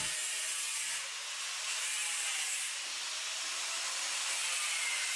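Abrasive sanding on the Land Cruiser's steel body: a steady, rough rubbing hiss that eases slightly about a second in and again near three seconds, the work of taking the body back to find rust.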